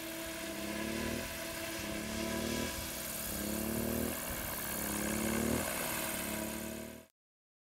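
Tethered electric model helicopter in flight: a steady rotor whir with a high motor whine, and a lower hum that rises in pitch and drops back about every second and a half. The sound cuts off suddenly near the end.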